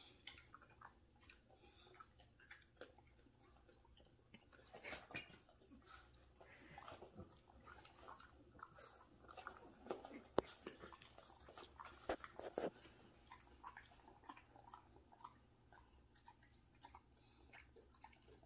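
American Bulldog and English Bulldog puppy chewing leafy greens: quiet, irregular crunching and mouth smacks, with one sharper crunch about ten seconds in.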